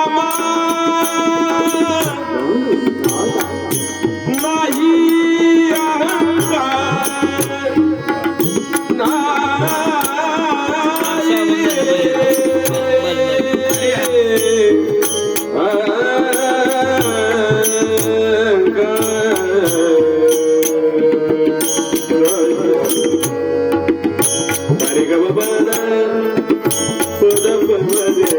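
Marathi devotional abhang music: a bending melodic line, sung or played, over continuous percussion.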